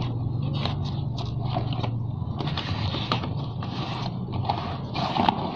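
Rubber inner tube being pulled out from inside a scooter's rear tyre, rubbing and scraping against the tyre and rim in irregular bursts, over a steady low machine hum.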